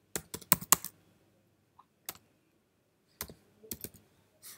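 Computer keyboard typing in bursts: a quick run of keystrokes in the first second, a single key about two seconds in, then a few more keystrokes near the end.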